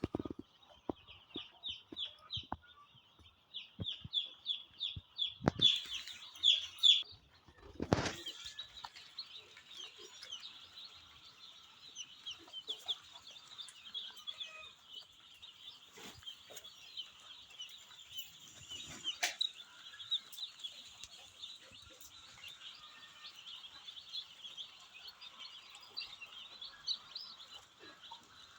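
A flock of chickens in a poultry house calling continuously, a dense stream of short high-pitched cheeps. There are scattered clicks and knocks in the first seconds and a louder knock about eight seconds in.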